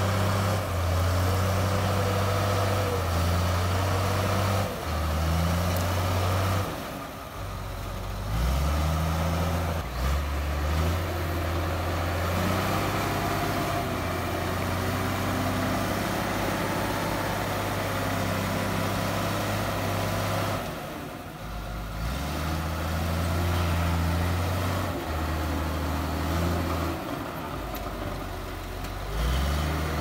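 Komatsu D53P bulldozer's diesel engine working hard under load. Its pitch steps up and down as the load and throttle change, and it eases off briefly about a quarter of the way in and again past the middle.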